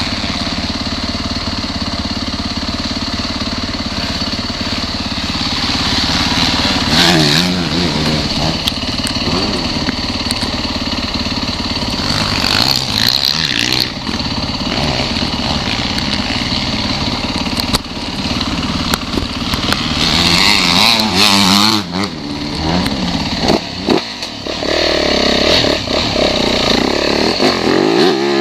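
Dirt bike engine heard from the rider's position, idling steadily at first. It then revs up and down several times, and near the end it climbs in pitch as the bike pulls away up the track.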